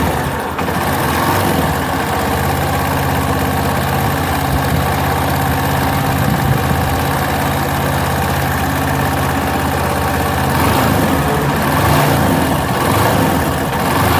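Yamaha Fazer 250 single-cylinder engine idling hot with a rapid mechanical 'tec-tec' ticking, a noise the mechanic traces to a faulty cam chain tensioner.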